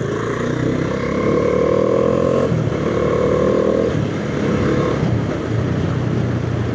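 Bajaj Dominar 400's single-cylinder engine accelerating through the gears on the road: the revs rise in three pulls, dropping at each upshift, then run steady.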